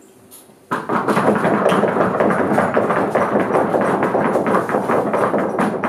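Audience applauding: many people clapping at once, starting abruptly just under a second in and going on at an even level, marking the end of the talk.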